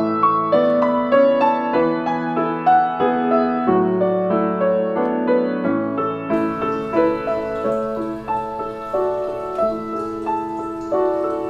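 Instrumental piano music, a flowing run of single notes over held chords.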